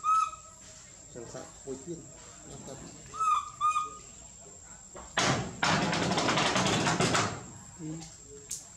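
Baby macaque cooing: a pair of short, clear, arching calls right at the start and another pair about three seconds in. A loud burst of noise lasting about two seconds follows from about five seconds in.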